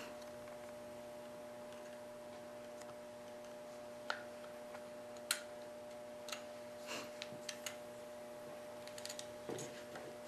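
Scattered small, sharp clicks and taps of S&W M&P pistol parts being handled and fitted by hand, bunched around the middle and near the end, over a faint steady electrical hum.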